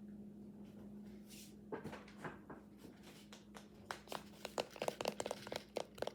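Hands handling and tapping a frozen paper towel squishy, hard as a rock: scattered clicks and crinkles starting about two seconds in and coming quicker near the end, over a steady low hum.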